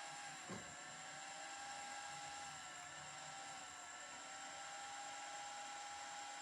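CNC plasma cutter running: a steady hiss with a high whine that dips briefly in pitch a few times, and a short thump about half a second in.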